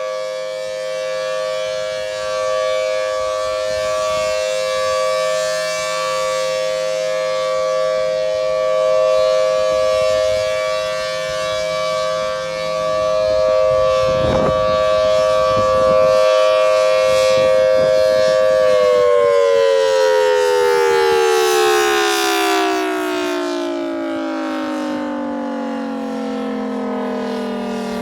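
Federal Signal Thunderbolt 1000T dual-tone rotating warning siren sounding the steady Alert signal: a held two-note chord that swells and dips in loudness. About two-thirds of the way through it shuts off and winds down, both notes falling together in pitch.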